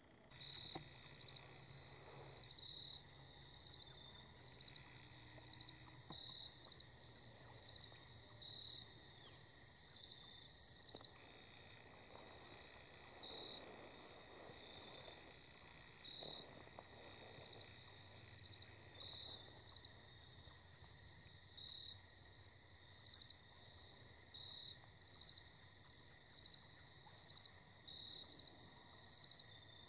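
Insects chirping in short pulsed bursts of a few notes each, roughly one burst a second, with two or more singers at slightly different pitches overlapping.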